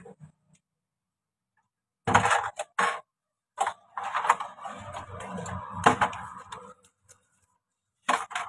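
Plastic bags rustling and things being handled, with clicks and clatter, in three bursts about two, four and eight seconds in, with dead silence between.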